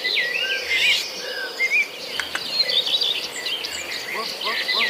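Javan myna calling: a quick run of varied whistles, chirps and short rising and falling notes, over a steady high insect-like buzz.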